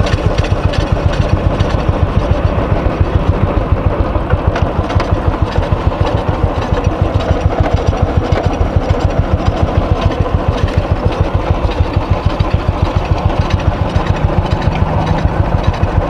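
Single-cylinder Royal Enfield Thunderbird engine idling with an even beat of about six a second, together with the rear disc brake pad rubbing and rattling against the disc ('khatar khutar'). The pad is touching the disc after the rear wheel was refitted, which the rider later puts down to air in the brake line.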